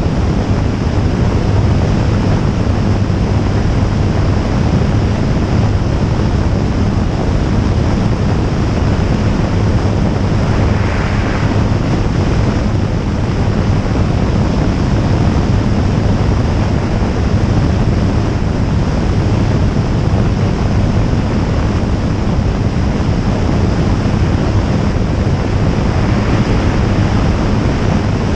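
Jabiru J160 light aircraft in flight: its four-cylinder Jabiru engine and propeller running at a steady drone, under heavy wind noise rushing over the microphone.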